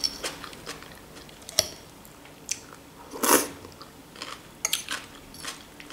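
A person chewing and biting food close to the microphone: soft scattered clicks and small crunches, with a louder bite about three seconds in. The food is a zucchini omelette and fresh vegetable salad.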